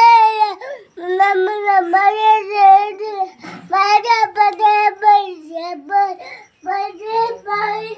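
A young child singing in a high voice, in held phrases broken by short pauses.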